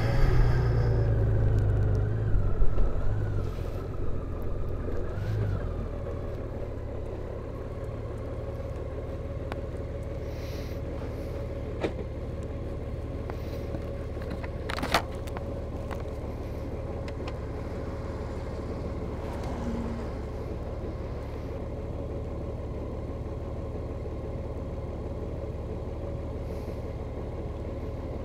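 Honda Gold Wing's flat-six engine idling steadily, louder for the first few seconds and settling to an even idle. Two sharp clicks stand out midway.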